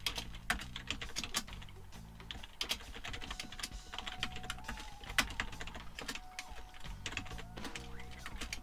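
Typing on a computer keyboard: a run of quick, irregular key clicks as a line of code is entered.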